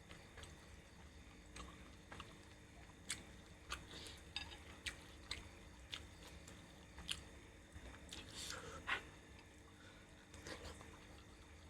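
A person chewing and eating ostrich curry close to the microphone: irregular wet mouth clicks and smacks. A louder cluster of them comes about eight to nine seconds in.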